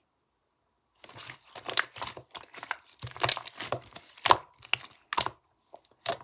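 Crinkling and crackling of something being handled, starting about a second in as a dense run of irregular crackles that break into a few separate crackles near the end.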